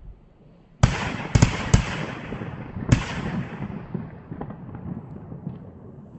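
A 20-shot consumer firework cake firing: five sharp bangs over about two seconds, starting about a second in, each trailing a long rolling echo that slowly dies away, with a few faint pops near the end.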